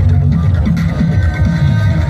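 Loud electronic dance music with a heavy, booming bass line, played through the loudspeakers of a miniature sound-system truck.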